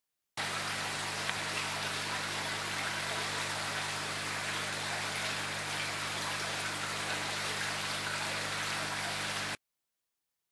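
Pond water splashing and trickling as a crowd of koi churns at the surface, over a steady low hum. It cuts in sharply about half a second in and cuts off sharply near the end.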